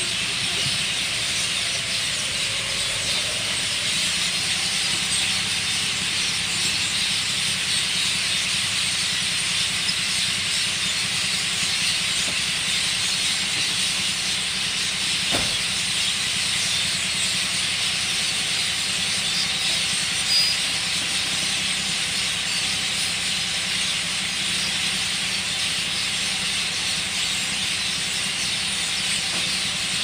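A large flock of small birds chirping together as they gather to roost at dusk, many calls merging into one dense, continuous high chatter, over a low steady hum.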